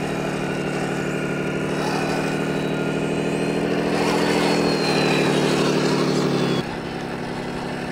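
Electronic engine sound kit on a 6x6 RC truck, playing a simulated truck engine through its speaker. The note grows louder as the throttle is worked in the mud, then drops suddenly to a quieter, lower engine note about six and a half seconds in.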